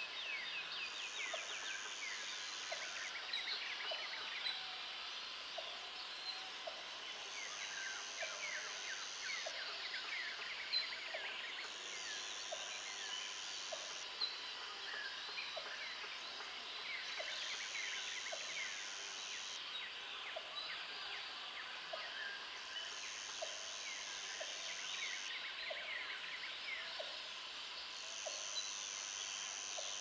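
Busy chorus of many overlapping chirping and whistled bird calls, with a high steady buzz that switches on and off every couple of seconds.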